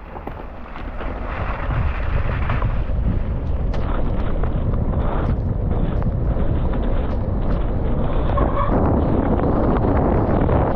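Wind rushing over a helmet camera's microphone as a downhill mountain bike picks up speed on a wet, muddy course, building over the first two seconds and then holding steady. Tyres churn through mud under it, with short clicks and rattles from the bike now and then.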